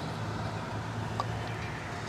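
A steady low hum, with one faint short click about a second in.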